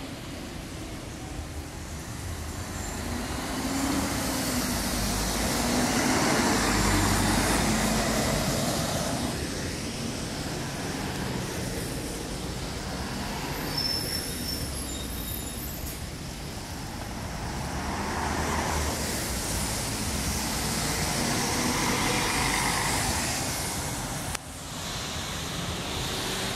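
A Mercedes-Benz O500UA articulated city bus drives past, its diesel engine and tyres on the wet road swelling and then fading. Later a Mercedes-Benz O500UDA BlueTec 5 articulated bus passes the same way and drives off, with a brief faint high whine just before it.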